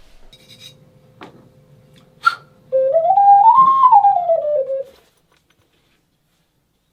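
Ceramic ocarina played, running a quick stepped scale up and back down in clear, flute-like notes, just after a sharp tap.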